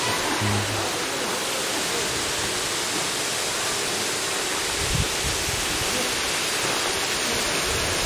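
Waterfall rushing close by: a steady, even wash of falling water, with a brief low thump about five seconds in.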